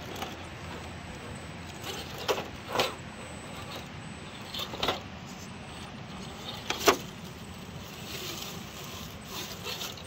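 Small electric RC rock crawler running over rocks: a steady low drivetrain whir, broken by a handful of sharp knocks as the truck hits and drops against the rock, the loudest about seven seconds in.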